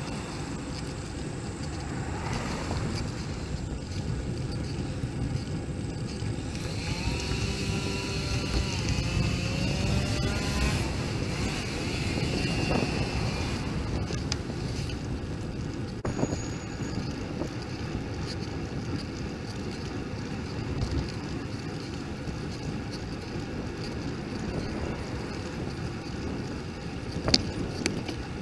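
Wind buffeting a bike-mounted camera's microphone over a steady rumble of riding. From about 7 to 13 seconds a motor's pitched hum passes, bending up and down in pitch. There is one sharp click near the end.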